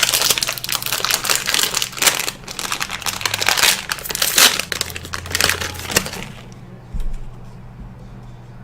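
Packaging crinkling and crackling as an item is unwrapped by hand. It stops about six seconds in, followed by a single soft thump.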